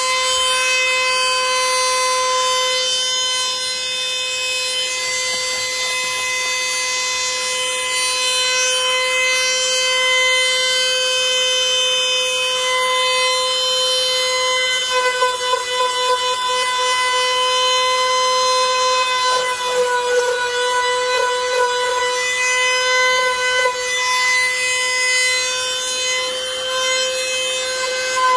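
A small high-speed power tool running steadily with a high whine, its pitch dipping slightly a few times past the middle as it bites into the work.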